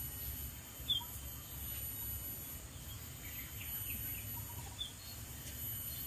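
A few faint, short bird chirps, scattered and widely spaced, over a low steady background rumble.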